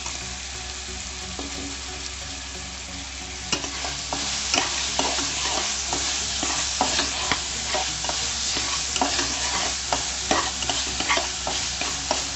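Sprouted green gram, peanuts and cowpeas sizzling in hot oil in a metal pan, frying in the masala. From about three and a half seconds in, a spoon stirs them with repeated scraping clicks against the pan.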